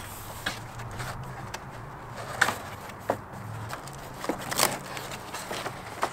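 A long cardboard shipping box being opened by hand: its tabs and flaps pulled loose and folded back and the paper wrapping handled, giving a string of short scrapes, knocks and crackles. A steady low hum runs underneath.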